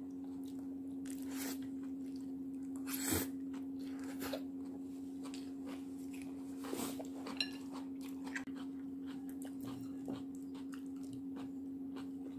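Eating at the table: chopsticks clicking against a bowl and chewing, in short scattered sounds, over a steady low hum.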